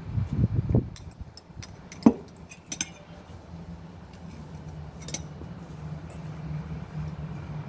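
Metal serving spoon and fork clinking and scraping against a glass salad bowl and a china plate, with several soft bumps in the first second and one sharp clink about two seconds in. A steady low hum runs underneath.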